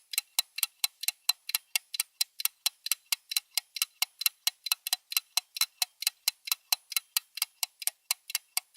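Rapid, even clock-like ticking, about four to five ticks a second, starting abruptly: a countdown timer sound effect.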